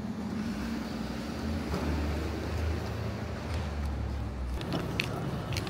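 City street traffic noise: a steady wash of passing cars, with a low vehicle engine rumble from about a second and a half in that cuts off suddenly near the end.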